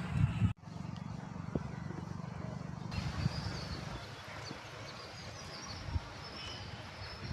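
Outdoor ambience. A low rumble cuts off abruptly about half a second in. After it comes a steady hiss, with faint, scattered bird chirps from about three seconds in.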